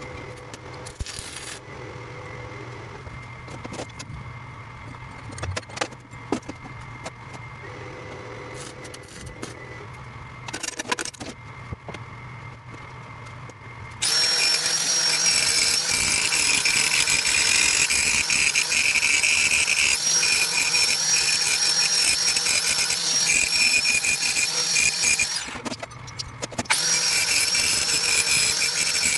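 A steady low hum with scattered metal knocks and clinks while the steel bracket is set in a bench vise. About halfway through, an angle grinder starts grinding the welded steel bracket: a loud, harsh grinding with a wavering high whine. It eases off for about a second near the end, then resumes.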